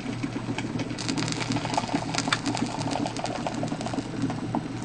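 Curdled milk and whey poured from a stainless steel pot onto filter paper in a strainer, splashing and trickling most densely from about a second in until past the middle, as ricotta curds are strained off the whey. A steady low hum runs underneath.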